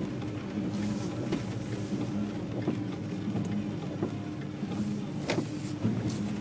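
Car cabin noise while driving on a wet road: a steady low hum of engine and tyres, with a sharp click about five seconds in.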